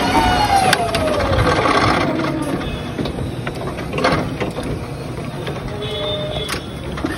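Forklift working: a whine that falls in pitch over the first couple of seconds as the machine slows, then a few sharp knocks and clanks, with a short steady hum a little before the end.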